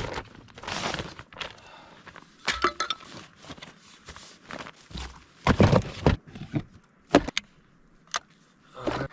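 Gear being handled: irregular rustling and scraping, with a few sharp clicks near the end.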